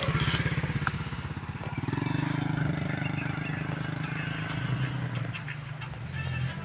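Vehicle engine running close by, a steady low drone with a rapid even pulse, joined by a slightly higher steady tone for a few seconds in the middle.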